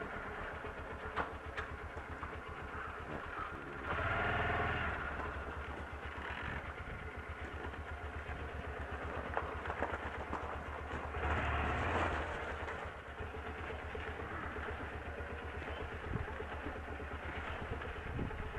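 Honda motorcycle engine running at low revs, picking up twice, about four seconds in and again around eleven seconds in, before settling back.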